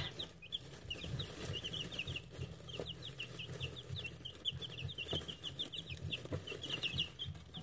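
A brood of two-week-old buff chicks peeping: a steady stream of short, high, downward-sliding cheeps from several birds at once, overlapping with no pause.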